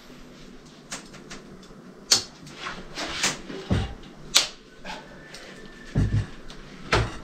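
Scattered sharp clicks and knocks of hand tools and a breaker bar working on a supercharger's metal casing on a workbench, with a couple of heavier thumps near the end.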